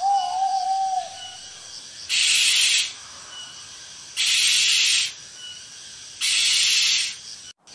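An owl calls: a short tonal hoot in the first second, then three harsh hissing calls about two seconds apart. Insects chirr faintly in the background.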